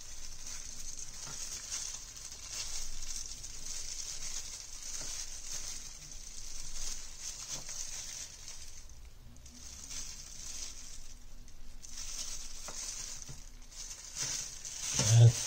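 Hands in a thin plastic glove peeling garlic cloves: soft crinkling of the glove and papery garlic skins, with a few light taps on the wooden cutting board. The rustle comes and goes, pausing twice in the second half.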